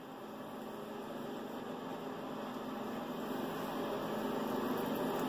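Steady low hum over an even hiss, slowly growing louder: room tone with no distinct event.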